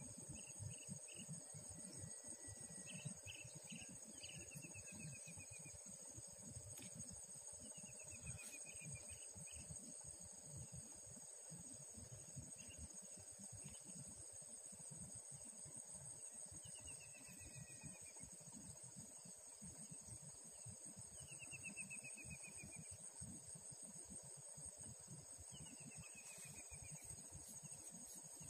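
Faint, steady high-pitched chorus of insects such as crickets, with a short falling trilled call repeating every few seconds and a low rumble underneath.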